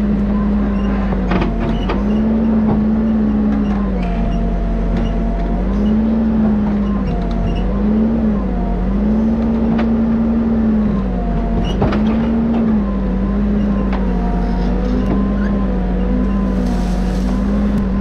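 Backhoe loader's diesel engine running steadily while the backhoe digs, its speed dipping and recovering every second or two. A faint higher whine rises and falls above it, with a few sharp knocks.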